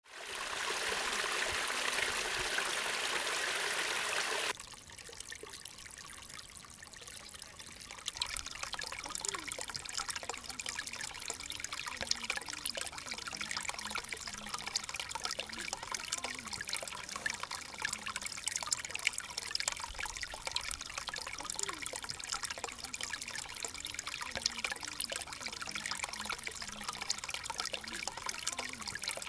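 Running water: a louder rush for about the first four and a half seconds, then a softer steady trickle with small bubbling splashes.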